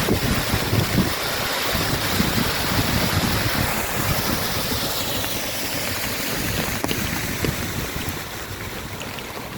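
Heavy rain falling with a steady hiss, with wind gusting on the microphone in the low end; it eases slightly towards the end.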